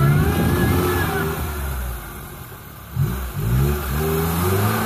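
Lada Niva engine revving hard under load as the car climbs out of a muddy rut. It eases off about two seconds in, then revs up again a second later.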